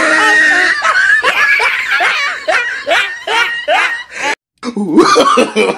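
Child's high-pitched laughter in quick short bursts, about three a second. It breaks off suddenly about four and a half seconds in, and a different voice follows.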